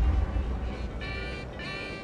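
Background music fading down, with two short tonal notes near the end.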